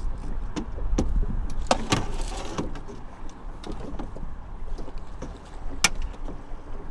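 Wind rumbling on the microphone aboard an aluminium fishing boat, with scattered knocks and clicks, a cluster about two seconds in and one sharp click near the end.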